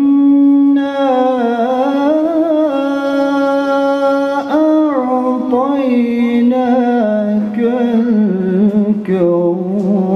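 A man's voice reciting the Quran in melodic tajweed chant, drawing out long held notes with ornamented turns in pitch.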